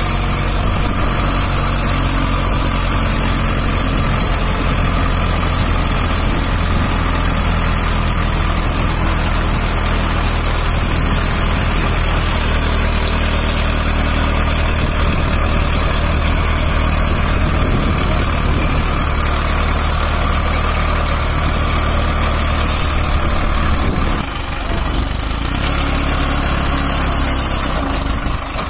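Mahindra Arjun Ultra-1 555 DI tractor's four-cylinder diesel engine running steadily, with a brief dip in level near the end.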